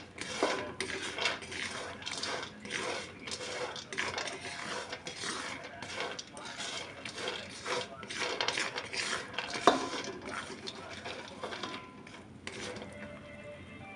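Fried peanuts being stirred and scraped around a nonstick pan with a spatula: an irregular rattling of nuts with scrapes of the spatula on the pan, and one sharper knock about ten seconds in.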